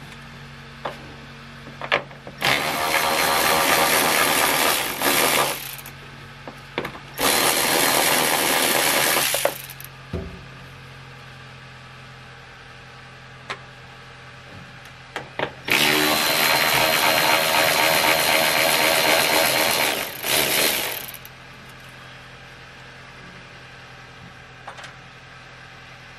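A handheld power tool running in three bursts of a few seconds each, starting about two seconds in, about seven seconds in and, the longest, about sixteen seconds in. It is removing the nuts that hold the heater core housing to the firewall.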